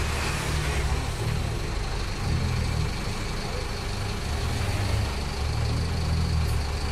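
City bus diesel engine running at low speed in slow traffic, heard from inside the cabin near the front. It is a steady low hum with cabin noise, the engine note rising and falling slightly as the bus creeps forward.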